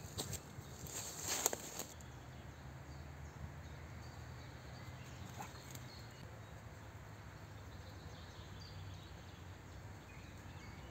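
Footsteps crunching and rustling in dry leaf litter for about the first two seconds as a person steps in and crouches. Then quiet woodland background with a low steady hum and an occasional small rustle.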